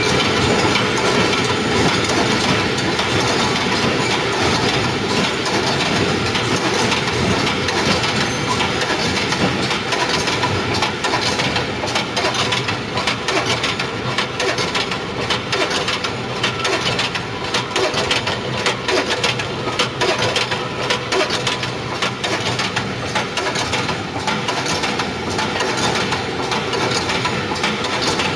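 Hinge joint field fence weaving machine running: a steady mechanical clatter of dense, irregular clicks and knocks over a constant machine noise.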